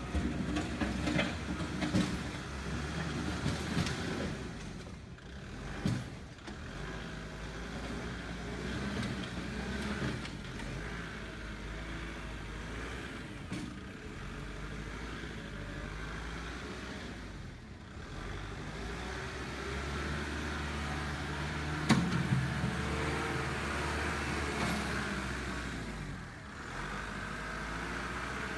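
Kubota machine's engine running under varying load, its pitch rising and falling, with a few sharp knocks, the loudest about three-quarters of the way through.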